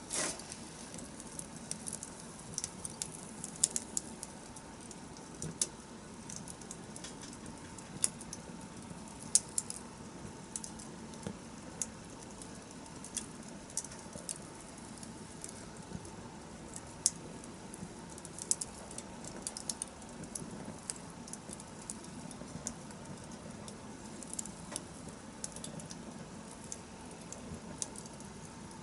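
Wood campfire crackling: irregular sharp pops and snaps over a low steady hiss, with a louder crackle right at the start.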